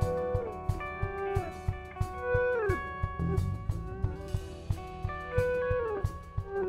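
Live blues band: a harmonica, played cupped against a microphone, holds notes that repeatedly bend down in pitch, over electric guitars, bass and a drum kit keeping a steady beat.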